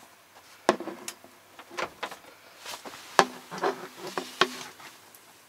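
Handling knocks and clicks from a wall-mounted TV and its swivel-arm mount being moved and fiddled with: about six sharp knocks over a few seconds, several with a short hollow ring, the loudest about three seconds in.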